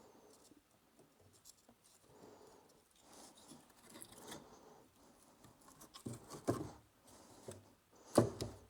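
Quiet scratching, rustling and light clicking of hands handling things, with a few louder knocks about six seconds in and near the end.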